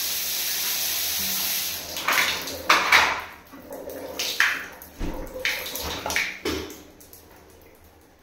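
Overhead rain shower head spraying water, a steady hiss that stops about two seconds in, followed by a series of irregular splashes and drips that fade away.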